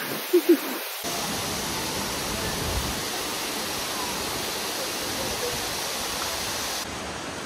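Steady rush of falling water from waterfall cascades: an even, unbroken hiss. A brief bit of voice is heard just at the start.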